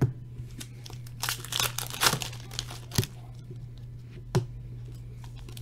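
Foil trading-card pack wrapper crinkling and tearing as hockey cards are handled, with a few sharp taps, over a steady low hum.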